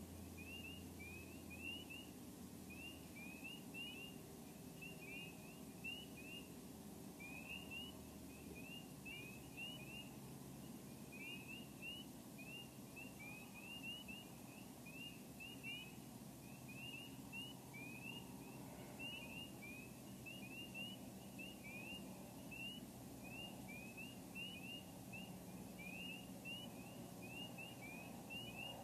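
A chorus of frogs calling on a spring night: many short, rising peeps, overlapping several times a second, over a faint low rumble.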